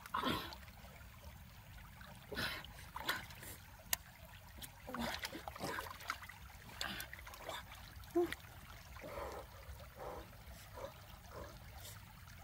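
Shallow stream water sloshing and splashing in irregular strokes as hands work among submerged rocks, over the steady trickle of the running stream.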